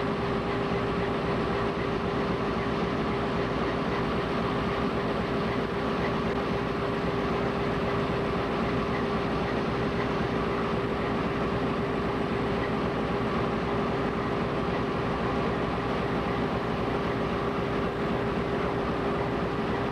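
GE U20C diesel-electric locomotive's V12 diesel engine and main generator running steadily, with a constant whine above the engine's rumble.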